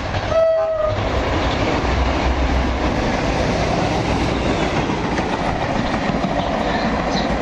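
Class 57/3 diesel-electric locomotive (EMD V12 two-stroke engine) gives a short horn blast about half a second in. It then passes close at speed, with a steady loud rush of engine rumble and wheel-on-rail noise.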